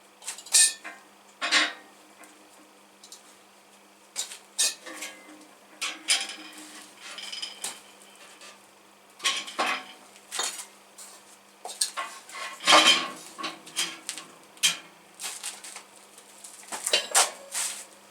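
Metal parts clanking and scraping against each other as they are handled: irregular sharp metallic knocks, some with a short ring.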